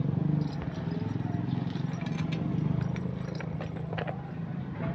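A scatter of sharp clicks, snaps and rustles of movement through leaves and dry litter, over a louder low steady motor hum.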